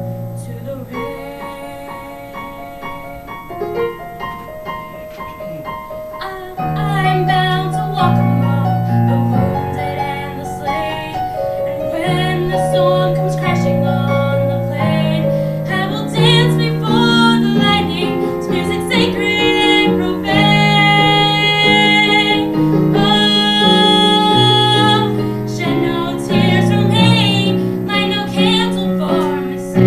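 A woman's solo voice singing a musical-theatre ballad with keyboard accompaniment, held notes with vibrato over piano chords. Soft at first, it grows louder about seven seconds in.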